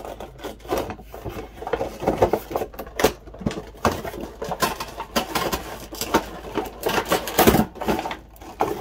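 Cardboard-and-plastic toy box being handled and opened: a dense, irregular run of rustles, scrapes and clicks.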